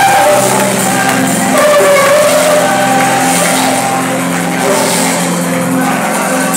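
Gospel choir singing over steady instrumental accompaniment, amplified through the church's sound system in a large hall.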